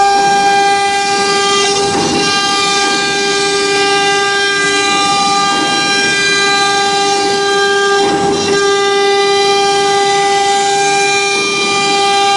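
CNC router spindle running at high speed with a steady high-pitched whine while its bit routes a raised-panel groove into a cabinet door board. Cutting noise swells up under the whine about two seconds in and again about eight seconds in.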